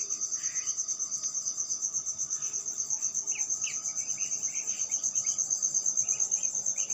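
A cricket trilling steadily, a high, rapid, evenly pulsing chirp, with faint short chirps scattered beneath it.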